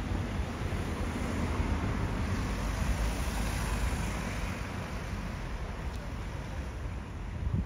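Street traffic: cars driving past close by along a town seafront road, a steady wash of engine and tyre noise with a low rumble underneath.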